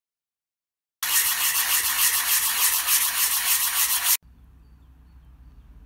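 Honda Transalp 600 brake pad being rubbed back and forth on sandpaper in quick rasping strokes, sanding the pad's friction surface to cure brake squeal. It starts abruptly about a second in and stops suddenly about three seconds later.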